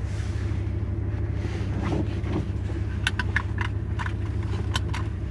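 Car engine and road noise heard from inside the cabin: a steady low rumble. A series of light clicks comes about three to five seconds in.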